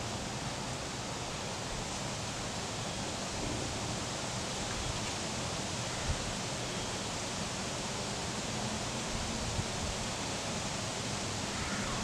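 Steady, even outdoor background hiss with no distinct events, apart from a faint knock about six seconds in.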